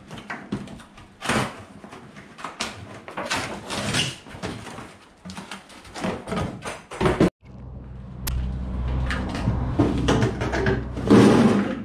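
Cardboard packaging scraping and rustling, with knocks from a black steel tool-chest cabinet, as it is handled and pulled out of its box. About seven seconds in the sound cuts out briefly, then a steady low hum runs under further handling.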